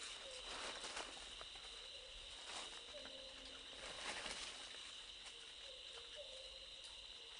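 Forest ambience: a steady, high-pitched insect drone with short low notes repeating every second or so and scattered soft clicks and rustles.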